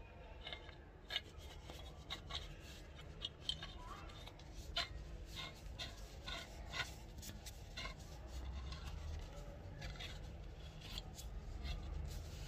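Steel barrel threads scraping and clicking as an antique rifle's barrel is screwed by hand into its receiver: a string of small, irregular metallic ticks and scrapes.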